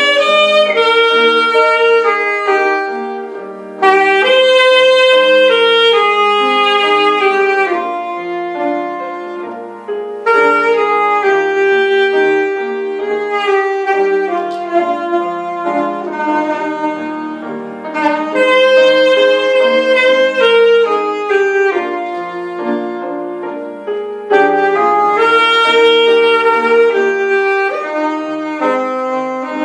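Saxophone playing a slow, lyrical melody over an accompaniment, in sustained phrases of about seven seconds, each swelling and then fading before the next begins.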